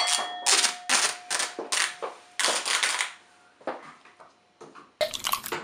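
Masking tape being pulled off the roll in a series of short rasping rips, about two a second over the first three seconds, with a denser burst of ripping near the end.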